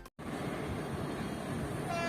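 Steady rushing trackside noise; right at the end the horn of a WAP-7 electric locomotive starts to blow a long, steady note.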